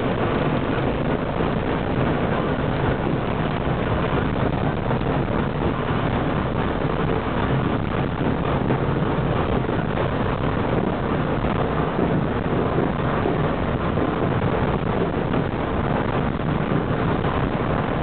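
Tram in motion, heard from inside the car at its rear: steady running noise of the wheels on the rails and the running gear.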